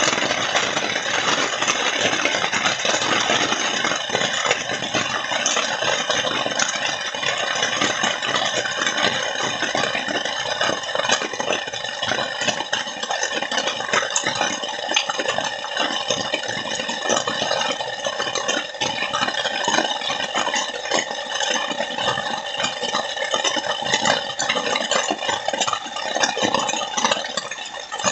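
Heavy rain falling: a loud, steady, dense patter full of sharp drop hits.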